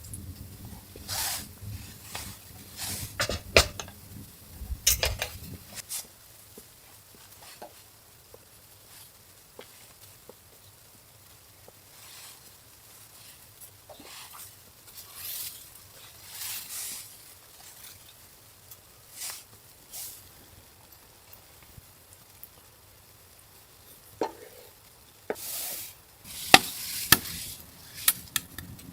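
Intermittent handling noises: short rustles and scrapes with a few sharp clicks, busiest at the start and near the end, over a low rumble that stops about six seconds in.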